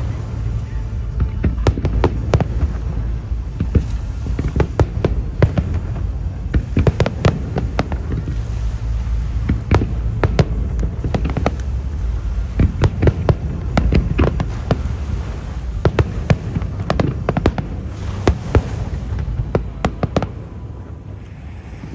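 Aerial fireworks display: a rapid, irregular barrage of bangs and crackling shell bursts over a continuous low rumble, thinning out near the end.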